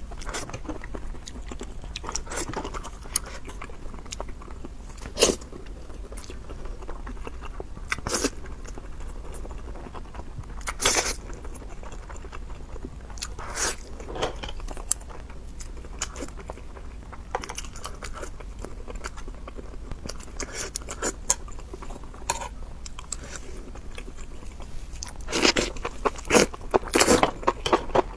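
Close-miked eating: biting and chewing of chili-sauced enoki mushrooms and scallops, with a sharp crunch every few seconds and a quick run of crunches near the end.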